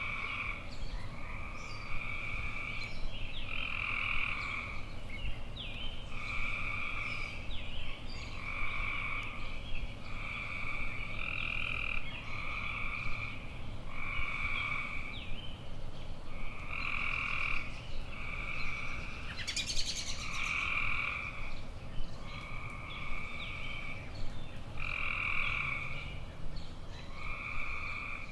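Frogs calling: one call repeated roughly every second and a half, each lasting under a second, with faint short chirps in between. A brief crackle comes about two-thirds of the way through.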